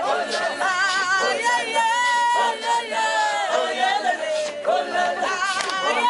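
A group of young men singing a cappella, held notes with a wavering pitch and no instruments, over the murmur of a watching crowd.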